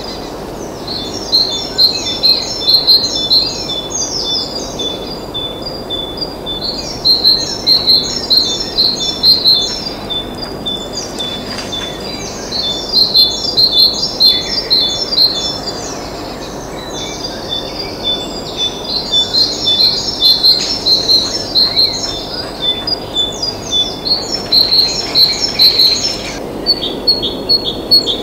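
A small songbird singing phrases of rapid, high-pitched notes, each phrase lasting a few seconds and repeated after short pauses, over a steady low background hum.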